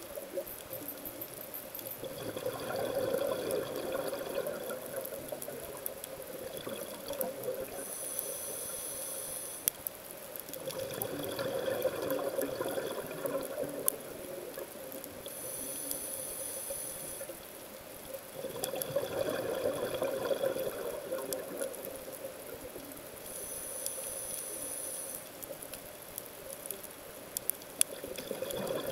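Scuba diver breathing underwater through a regulator, in a slow even cycle about every eight seconds. Each breath is a hissing inhale of about two seconds, then a longer burst of bubbling exhaust. Faint scattered clicks throughout.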